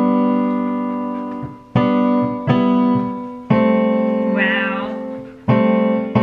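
Small keyboard piano played slowly in block chords. Each chord is struck and left to ring and fade before the next one, about four new chords in all.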